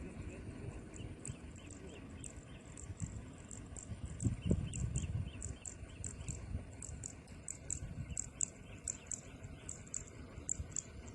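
Insects chirping in short high pulses, a couple a second at first and quicker later, over a low rumble, with a thump about halfway through.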